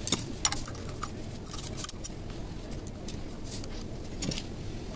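Scattered light metallic clicks and clinks as small steel parts of an opened Juki overlock machine are handled and fitted by hand, over a steady low background noise.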